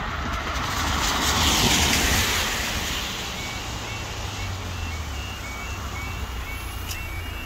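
A van passes over the crossing on a wet road, its tyre hiss swelling to a peak about a second and a half in and then fading. About three and a half seconds in, the level crossing's warning alarm starts up, a repeating electronic tone alternating between two pitches, as the amber light comes on at the start of the crossing's closing sequence.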